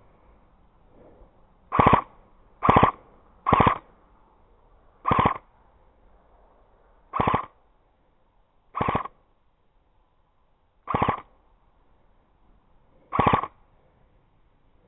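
Airsoft gun fired in short full-auto bursts, eight bursts at irregular intervals of one to two seconds.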